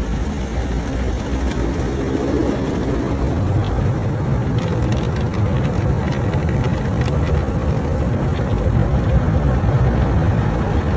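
Automatic car wash heard from inside the car's cabin: a steady low rumble of the wash machinery, with water spraying and running over the windows and a few faint taps near the middle.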